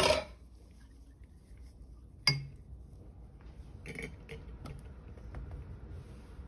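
Silicone spatula knocking against a glass measuring cup while soap batter is scooped out: a sharp ringing clink at the start, another about two seconds in, and a few softer knocks around four seconds in.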